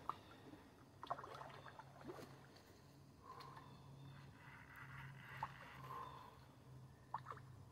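Faint splashing and sloshing of shallow river water as a big carp thrashes and swirls at the surface, with a low steady hum underneath.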